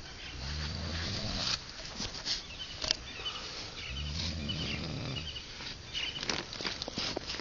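A man snoring: two long, low snores about three and a half seconds apart.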